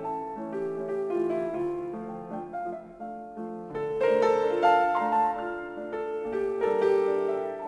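Piano music, several notes sounding together in a melody over chords, getting louder from about four seconds in.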